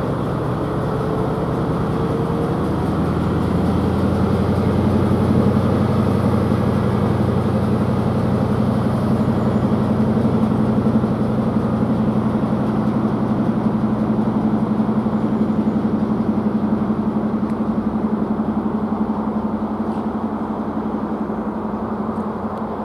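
High Speed Train's Class 43 diesel power cars pulling away, a steady deep engine drone that grows louder over the first few seconds and then holds.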